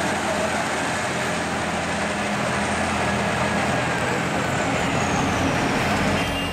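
Rába-Steiger articulated tractors' diesel engines running steadily as the tractors drive along the road, a continuous engine drone.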